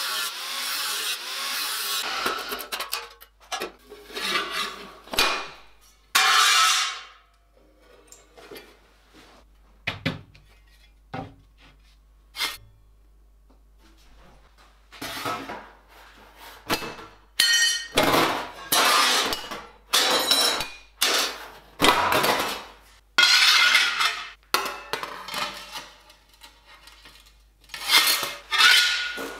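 An angle grinder cutting thin stainless steel sheet for the first two seconds, then a run of separate clanks, clinks and rattles as the cut sheet-steel pieces are handled, flexed and set down, with quiet gaps between.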